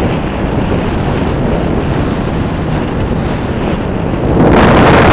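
Wind rushing over the microphone of a camera on a bicycle coasting downhill at speed, a steady loud noise that grows louder about four and a half seconds in.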